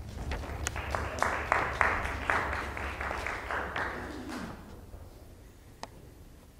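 An audience applauding briefly, a small group clapping that fades out after about four seconds.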